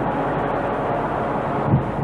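Diesel locomotive engine running with a steady drone, giving way to a louder, uneven rumble near the end.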